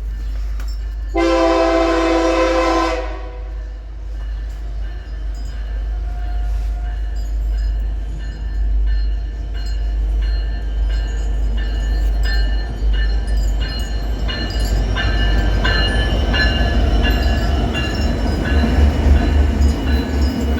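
A diesel-electric locomotive sounds its air horn in one long blast about a second in, then comes on with a low engine rumble that grows louder toward the end. Wheels click over the rails as a loaded iron-ore train draws near.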